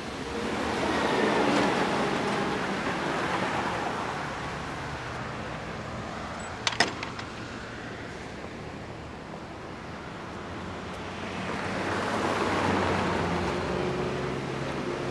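Cars passing on a wet road: a tyre hiss swells and fades about a second and a half in, and another near the end. About seven seconds in there are two sharp knocks close together.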